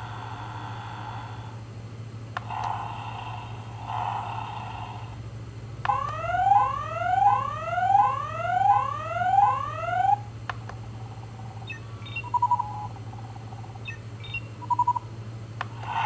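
Spin Master Batmobile toy from The Batman playing its electronic sound effects through its small speaker. An engine sound stops about a second and a half in. A few seconds later comes a repeating rising electronic whoop, six sweeps over about four seconds, followed by two short beeps.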